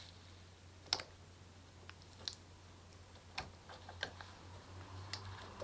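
Faint, scattered clicks and small rubbery ticks of fingers working the knotted neck of an inflated balloon while trying to tie it off, about six in a few seconds.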